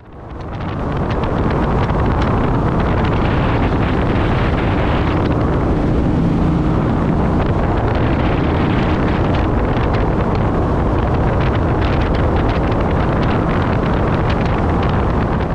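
Jet boat with a 460-horsepower engine running at speed, heard from on board: wind buffets the microphone over the engine's drone and rushing water. The noise fades in over the first second and then holds steady.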